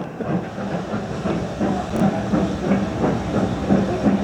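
Steam train on the move: a quick, uneven clatter of beats over a noisy haze.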